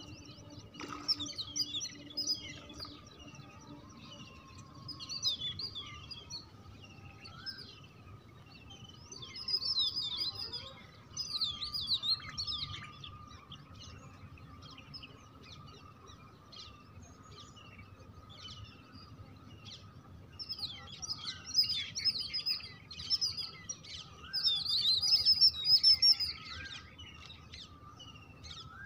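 Small birds chirping and twittering in clusters of quick rising-and-falling notes, loudest about ten seconds in and again near the end, over a faint steady high tone.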